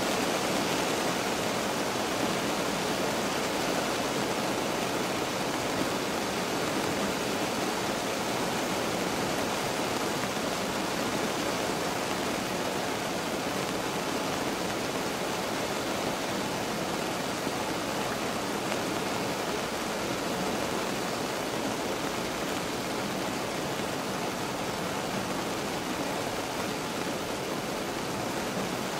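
Steady rain heard from inside a car: an even, unbroken hiss.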